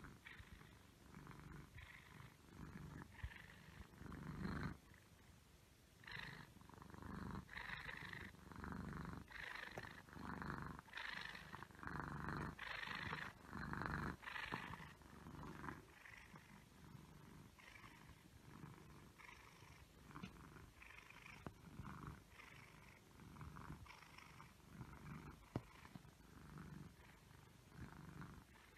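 Domestic cat purring steadily in rhythmic swells about once a second, louder through the middle stretch.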